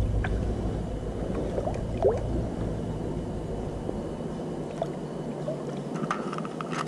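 Stream water sloshing and splashing as a bare hand reaches into the water to land a hooked trout, with a sharper splash near the end. A low rumble fades away over the first few seconds.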